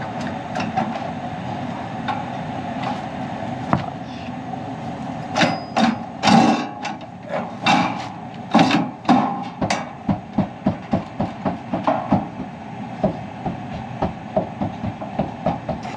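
Sheet-metal furnace door panel being worked back into place: a string of knocks and rattles, coming quick and fairly regular in the second half, over a steady mechanical hum.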